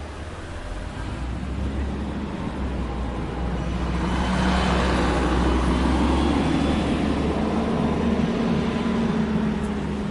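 Street traffic: a motor vehicle passes, its engine hum and tyre rush growing louder to a peak about halfway through, then easing off.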